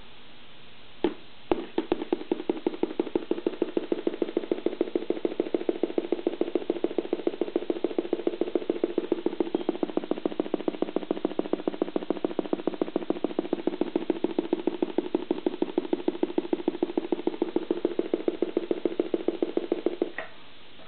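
DIY electronic organ kit sounding through its speaker as a finger touches its bare PCB: a rapid, even stutter of pulses like a machine gun. It starts after two single clicks about a second in and cuts off suddenly near the end.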